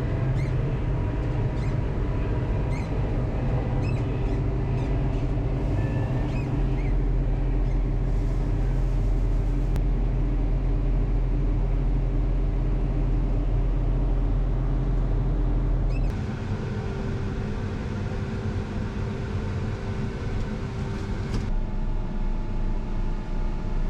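Farm machinery engine running steadily with a deep, even hum. About two-thirds of the way through it changes abruptly and gets a little quieter.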